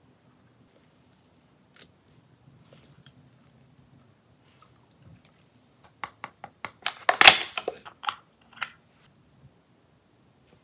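Fingers tapping and clicking on a clear plastic lip-balm blister pack, a quick run of sharp clicks, then a loud crackling crunch of the plastic about seven seconds in, followed by a few more clicks. Faint scattered clicks come before it.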